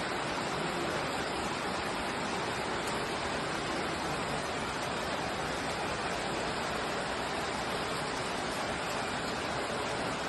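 Steady rain falling as an even, unbroken hiss, with no separate drops standing out.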